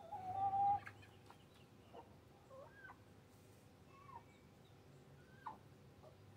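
Backyard chickens clucking: one loud drawn-out call in the first second, then short, scattered clucks every second or so.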